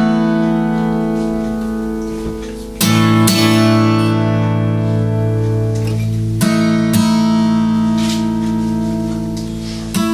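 Instrumental intro of a song: slow chords struck and left to ring, a new chord about every three to four seconds.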